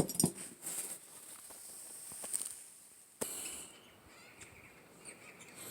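Faint outdoor background noise with a few light clicks near the start and a slightly louder stretch of hiss from about three seconds in.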